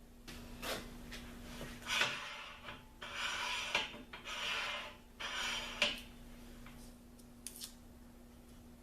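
Antique hand-cranked post drill parts being sanded by hand: about four short scrubbing strokes in the middle, with a few light clicks before and after, over a faint steady hum.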